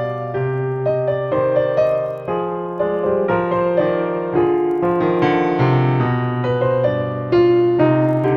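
Background piano music: a slow melody of held notes that change about every half second to a second, over low sustained bass notes.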